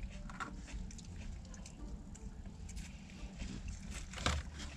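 Quiet eating sounds: chewing with small clicks and rustles of a plastic fork in a plastic coleslaw cup and a fast-food drink cup being handled, over a low steady hum. A sharper knock comes about four seconds in.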